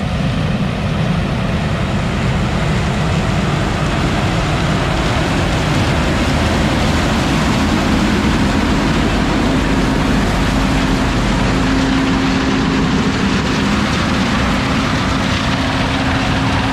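Engine of a heavy farm vehicle running steadily while under way, with a continuous dense rumble and a low engine hum that grows stronger and a little higher in pitch about nine seconds in.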